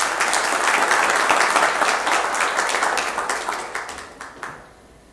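Audience applauding, a dense patter of many hands clapping that tapers off and dies away about four and a half seconds in.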